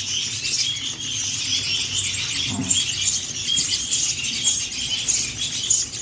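A brood of gereja pohon nestlings begging for food, a dense, continuous chorus of short, high cheeps from several chicks at once.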